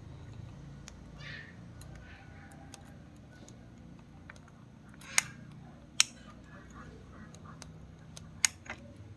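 A steady low hum with faint scratching, then sharp clicks: three loud ones in the second half and a weaker one right after the last.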